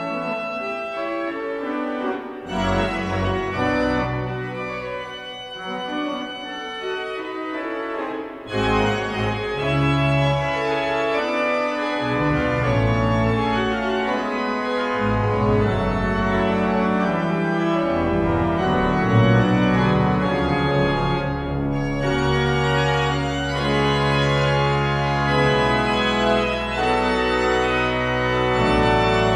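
Church organ playing sustained chords; after about eight seconds deep bass notes come in and the playing grows louder and fuller.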